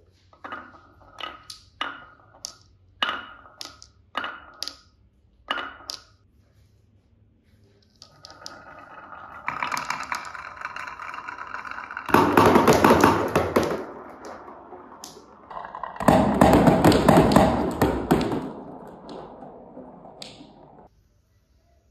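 Glass marbles clacking one by one on a wooden marble run, a dozen or so sharp clicks, then a long rolling rattle of many marbles running down the track together, with two loud spells before it fades out.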